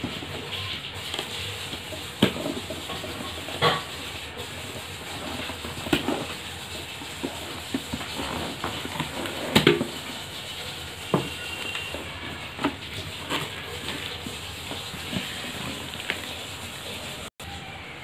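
Cardboard box being opened by hand: cardboard flaps and packing tape rustling and scraping, with scattered sharp taps and knocks, the loudest about halfway through.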